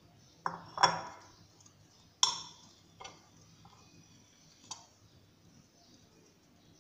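Metal wire whisk knocking and clinking against the sides of a mixing bowl as dry flour is stirred into batter: a few sharp, uneven knocks, the loudest about a second and two seconds in, each ringing briefly.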